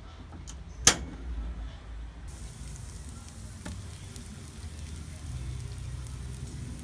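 Food sizzling in a frying pan, the hiss starting about two seconds in. A sharp click comes about a second in, and a fainter one later.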